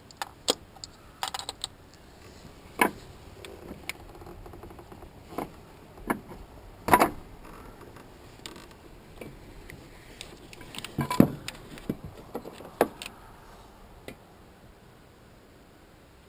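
Irregular metallic clinks and clanks of hand tools and small engine parts being handled, loudest about 7 and 11 seconds in, stopping after about 14 seconds.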